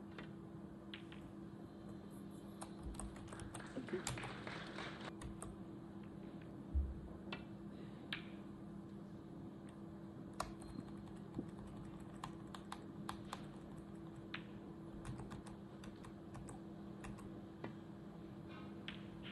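Faint, irregular clicking of typing on a computer keyboard, in short quick runs, over a steady low hum.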